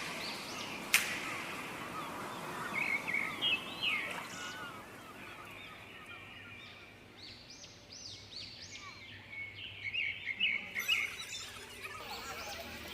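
Birds chirping in short repeated calls over a steady background hiss, with one sharp click about a second in.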